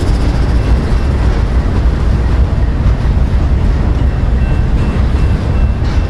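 BNSF freight train rolling past close by, a trailing diesel locomotive giving way to double-stacked container cars: a loud, steady rumble of wheels on the rails.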